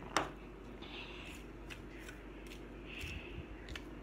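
Salt and pepper shakers handled and shaken over a bowl: a sharp click near the start, then faint ticks and two short rattles of seasoning.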